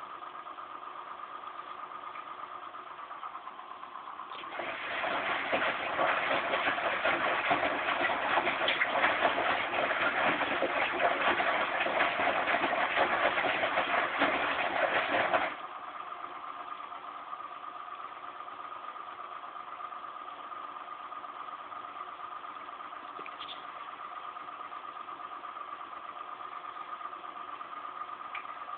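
Zanussi Z 630 washing machine humming steadily. About four seconds in, a loud rush of water starts and cuts off sharply some eleven seconds later, as the machine fills with water for its final rinse with softener.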